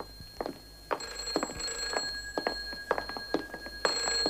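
Footsteps of several people walking briskly on a hard corridor floor, with a telephone ringing in short bursts about three seconds apart in the background.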